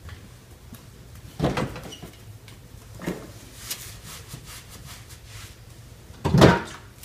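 Refrigerator door pulled open with a thump, then rummaging inside: containers and bottles knocking and clicking on the shelves, with the loudest knock about six seconds in.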